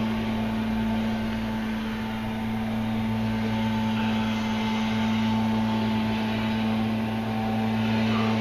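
A steady mechanical hum with an even whirring noise underneath, unchanging throughout.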